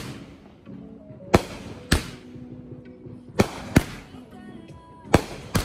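A Vivid Neon Ninja #4 firework cake (200 g, 16 shots) firing. Sharp bangs come in pairs about half a second apart, a new pair roughly every one and a half seconds.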